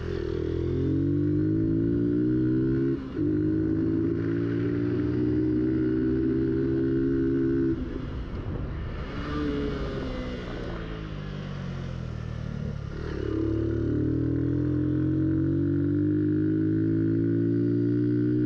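Motorcycle engine pulling hard with its pitch climbing, a brief break about three seconds in, then holding steady. Around eight seconds in the throttle closes and the revs fall away while coasting. About thirteen seconds in it accelerates again and settles at a steady pitch.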